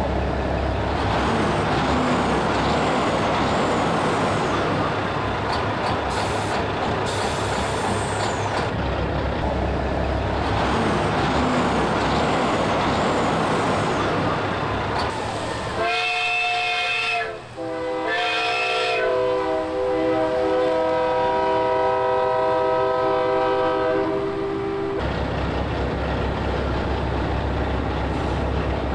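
Steady heavy vehicle running noise. About two-thirds of the way through, a multi-tone air horn blows: two short blasts, then one long held chord of several seconds, before the running noise comes back.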